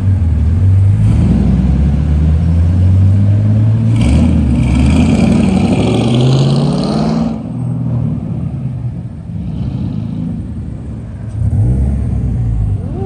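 Sports cars accelerating away one after another, engines and exhausts loud for the first seven seconds with a hiss over the top in the last few of them. Then quieter, with another car's engine rising near the end.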